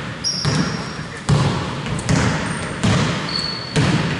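Basketball being dribbled on a hardwood gym floor, a steady thump about every three-quarters of a second, with a few short, high sneaker squeaks on the floor.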